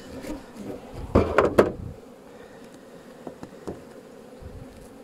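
Honeybees buzzing around an opened hive, with a brief louder burst of noise a little over a second in.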